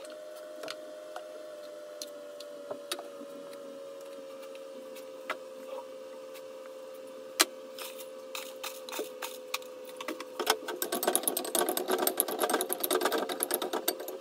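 Two steel spoons clinking and scraping against a dish while chopped vegetables are mixed with spices, dense and rapid from about ten seconds in. Before that, scattered light taps as spices are tipped in from jars, over a steady hum.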